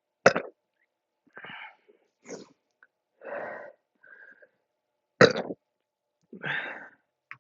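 A woman burping repeatedly from a stomach full of carbonated soda she has just speed-drunk. Two sharp, loud burps come about five seconds apart, with several smaller ones in between and after.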